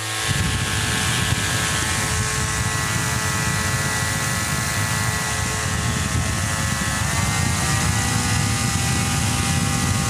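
Homemade table fan's brushless motor spinning the blades at about 20% throttle: a steady electronic whine over the rush of moving air, with the fan's wind rumbling on the microphone. The whine steps up slightly in pitch about seven seconds in.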